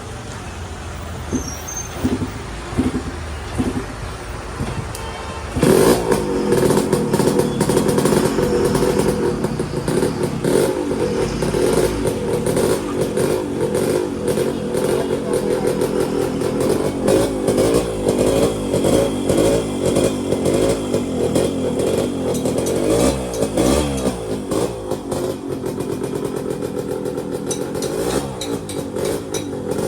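Yamaha RX-Z two-stroke single-cylinder engine firing up about six seconds in on its first start after a rebore and new piston, then running and being revved up and down. The piston noise is largely gone.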